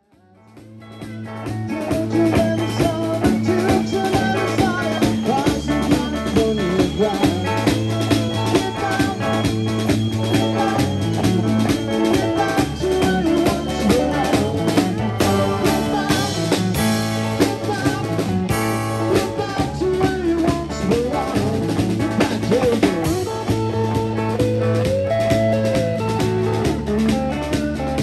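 A live band plays an up-tempo tune on drum kit, electric guitars and keyboard over a steady bass line. The music fades in from silence over the first two seconds.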